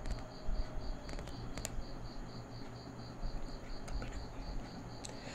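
Chopped onions tipped from a bowl into a pot, with a soft rustle and a few light clicks. A faint, high chirp repeats evenly about four times a second throughout.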